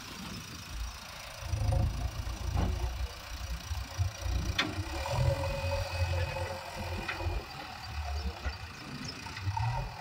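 Diesel engines of a JCB 3DX backhoe loader and a Mahindra Arjun tractor running with a steady low rumble while the loader dumps soil into the trolley and lifts its bucket. Two sharp knocks come through, one a little before five seconds in and one about seven seconds in.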